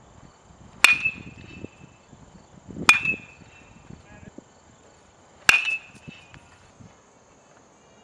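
Aluminum baseball bat hitting pitched balls: three sharp pings about two to two and a half seconds apart, each ringing briefly.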